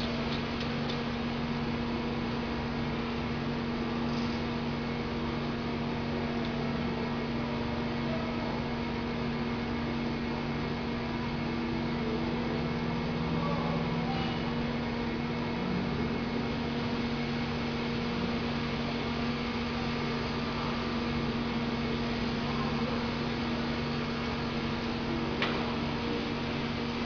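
Running machinery giving a steady hum with constant tones and a light noise bed, unchanged throughout; a single sharp click about 25 seconds in.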